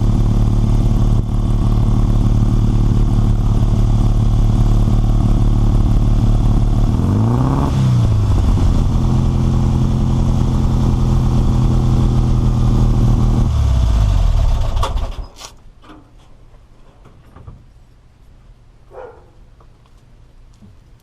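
Air-cooled Volkswagen flat-four engine idling, revved once briefly about seven seconds in, then shut off about fifteen seconds in, leaving only a few faint clicks.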